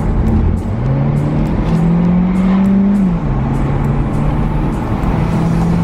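Audi A3 engine heard from inside the cabin, pulling away with its pitch rising over the first two seconds, then dropping sharply a little after three seconds as it shifts up a gear, then running steadily.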